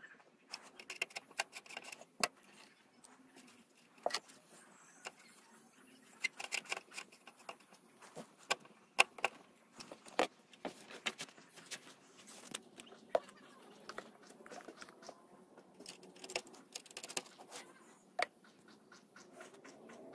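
Irregular small metallic clicks and taps of a screwdriver working the screw terminals of a subwoofer plate amplifier as the power wires are fitted and tightened.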